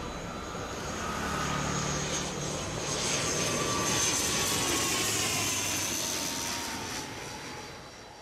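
An aircraft flying past, growing louder to a peak about halfway through, then fading away. A high engine whine slides slowly down in pitch as it goes by.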